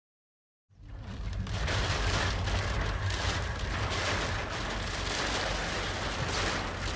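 Typhoon wind buffeting the microphone with a deep, rumbling roar and a dense rush of wind-driven rain, cutting in abruptly about a second in and holding loud.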